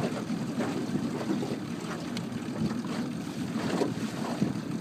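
Wind buffeting the microphone on a boat, with water splashing and lapping against it.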